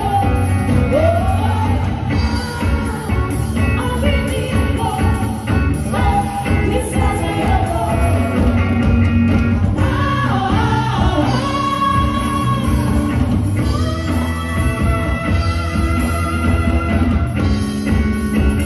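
Live rock band playing with a singer, heard loud from out in the crowd.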